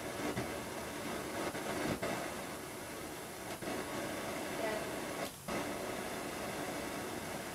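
Steady hiss of gasoline vapor jetting from a homemade torch tip through its flashback arrestor as the feed pressure is turned up, with a brief drop about five seconds in.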